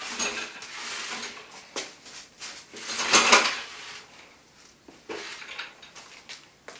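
Scraping and metallic rattling as a vintage Sears Craftsman wood planer on its plywood base is turned around by hand, with a few sharp clicks; the loudest scrape comes about three seconds in.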